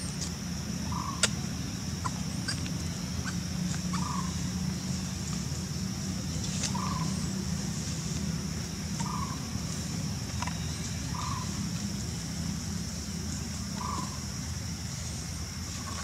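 An animal's short call repeated about every two to three seconds, over a steady high hiss, with one sharp click about a second in.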